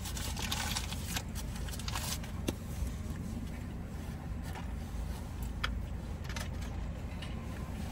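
Scattered soft rustles and clicks of food wrappers being handled and sandwiches being eaten, over the steady low rumble of a vehicle idling.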